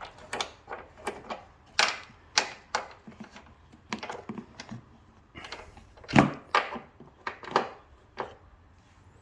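Irregular sharp metallic clicks and clacks of hand tools and bolts as the loosened strut mounting bolts on a Toyota Corolla's front suspension are taken out, with one heavier knock about six seconds in.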